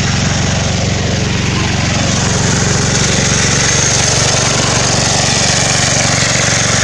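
Small engine running steadily at a constant speed, with a dense hiss over it.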